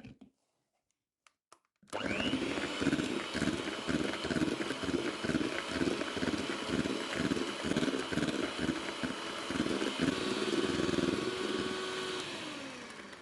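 Electric mixer beating egg whites and sugar into meringue. The motor whines up about two seconds in, runs steadily with a low pulse about twice a second, and winds down with falling pitch near the end.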